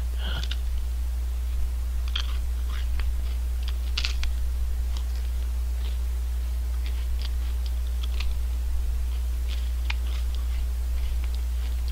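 Cledor vanilla almond ice cream cone being bitten and chewed close to the microphone: scattered short crisp crunches of the wafer cone, loud on the mic. A steady low hum runs underneath.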